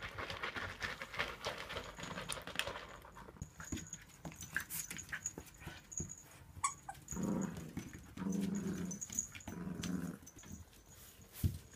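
Puppies playing: first the crackle of a puppy eating from a bowl, then three short play growls, each under a second, about two-thirds of the way in.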